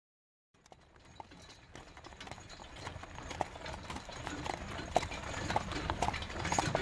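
Horses' hooves clip-clopping, fading in and growing steadily louder as they come closer.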